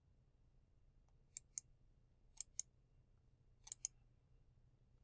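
Sharp clicks of keys being pressed, three quick pairs about a second apart, against near silence.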